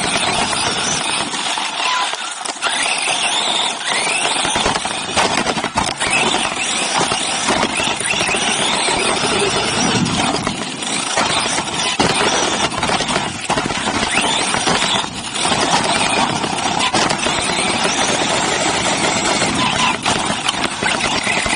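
Onboard sound of a Team Associated RC8B3.1 1/8-scale electric off-road buggy racing on a dirt track: a constant dense rush of drivetrain whine, tyres on dirt and air over the body, with the whine rising and falling as the throttle changes and frequent knocks from bumps and landings.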